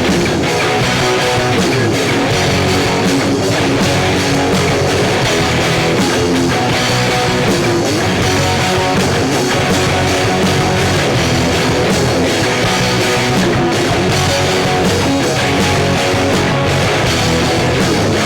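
Rock band playing a loud, dense song: electric guitars over bass and drum kit.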